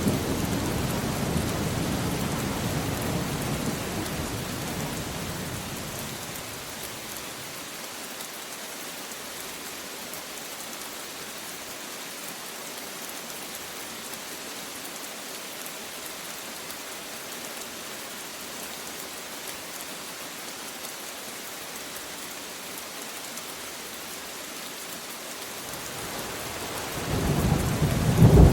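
Steady rain falling, with a roll of thunder rumbling at the start that fades away over the first few seconds. Another roll of thunder builds up near the end.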